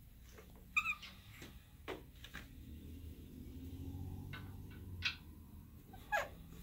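A few light clicks and taps, one with a brief ring, as a powder-coated cast lead bullet is handled and set onto the ram of a bullet sizing press, over a faint low hum.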